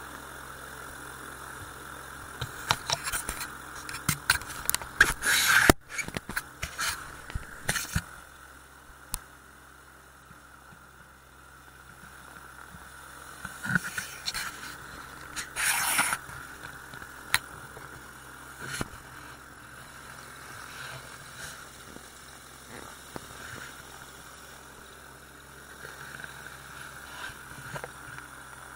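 Magni M16 autogyro's engine running steadily at low power while taxiing over grass, with clusters of knocks, rattles and scraping from the bumpy ride and rubbing against the camera, about three to eight seconds in and again around fourteen to sixteen seconds.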